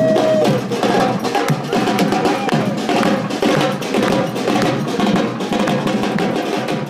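Street percussion band of large marching bass drums and snare drums playing a busy, driving rhythm, with one long held note ending about half a second in.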